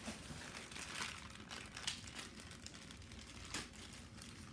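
Packaging of a Funko Mystery Mini blind box crinkling and rustling as it is opened: a run of irregular crackles, the clearest about two seconds in and again near the end.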